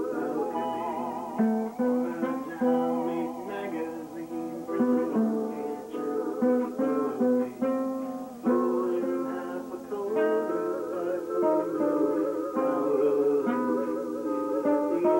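Live acoustic music on plucked string instruments: a quick run of picked notes, many of them wavering in pitch.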